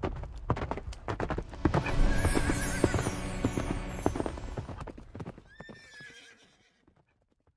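Horse hooves galloping, with a horse whinnying twice, once about two seconds in and again near the end. The hoofbeats fade away after about five seconds.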